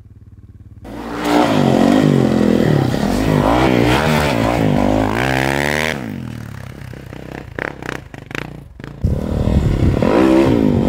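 Snowbike engine (a dirt bike on a snow track kit) revving up and down hard as it plows through deep powder, then dropping away about six seconds in with a few sharp knocks. About nine seconds in, a snowbike revs loudly again.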